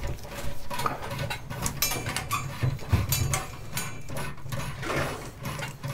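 Electrical wire scraping and clicking as it is fed by hand through metal conduit, with irregular clicks and rubbing close to the microphone over a low steady hum.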